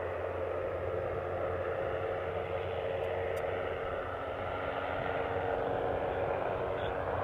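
MQ-9 Reaper's turboprop engine running with a steady drone.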